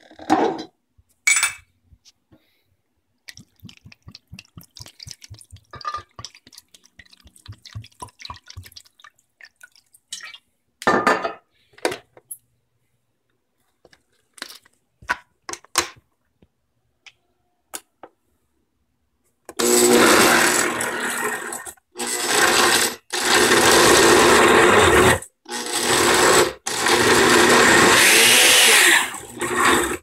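Scattered clicks and knocks, then about two-thirds of the way in an Oster BRLY07 reversible-motor blender starts, blending leafy greens and fruit into green juice. The motor cuts out briefly and restarts several times.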